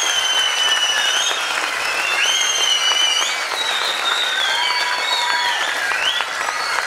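Theatre audience applauding, with long, high-pitched tones sliding in pitch rising above the clapping now and then.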